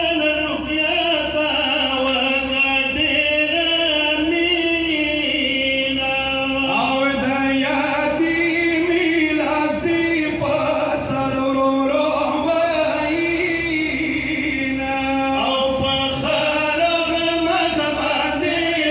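Several men chanting a Pashto nauha (Shia mourning lament) together into microphones, in long held, wavering notes.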